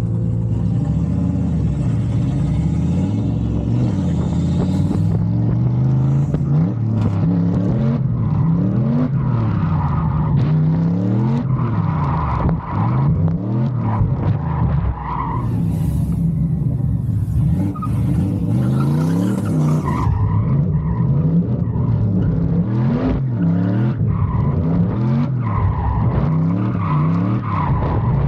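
Turbocharged LS V8 of a drift truck revving up and down over and over, about every one to two seconds, with tires squealing as it slides.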